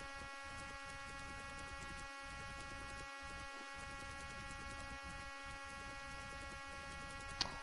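Faint steady electrical hum over a light hiss, with a short tick near the end.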